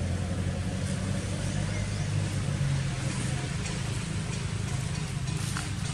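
Motor vehicle engine running with a steady low rumble.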